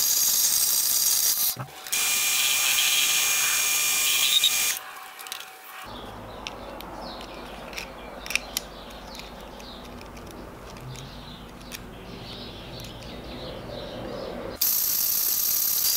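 Small bandsaw cutting a knurled mild-steel tube: a loud, steady high hiss with a thin whine, broken by a short gap about a second and a half in. About five seconds in it stops, and quiet small clicks and taps of a digital caliper and steel parts being handled on a wooden bench follow. The loud cutting noise starts again near the end.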